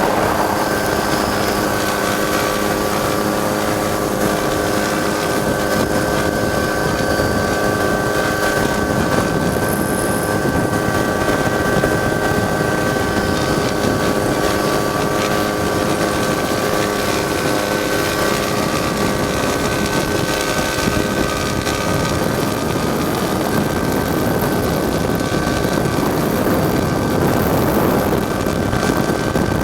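Helicopter heard from on board: turbine engine and rotor running steadily, a constant whine over a dense rumble. Some of the lower tones fade out about two-thirds of the way through.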